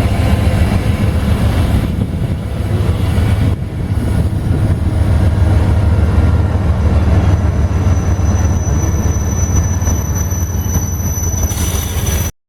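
Freight train rolling past with a heavy, steady low rumble; after about seven seconds a thin high wheel squeal joins in. The sound cuts off abruptly just before the end.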